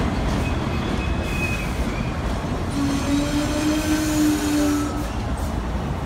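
Subway train moving slowly along the track: a steady low rumble of the cars, with a held whining tone from about three seconds in until about five seconds.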